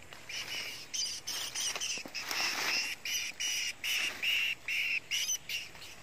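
A bird calling: a steady run of short, high chirping notes, about three a second.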